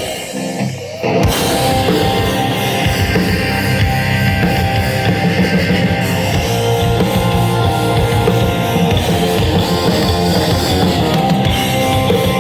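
Rock band playing an instrumental passage with drum kit and distorted electric guitars; after a brief drop in the first second, the full band comes back in and plays on steadily.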